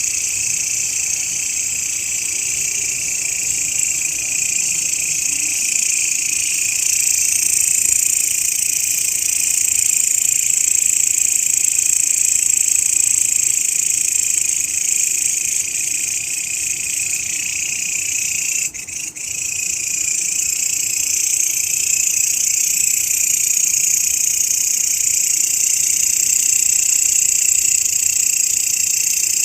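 Grasshopper stridulation: a continuous, steady, high-pitched shrill buzz that briefly dips about nineteen seconds in.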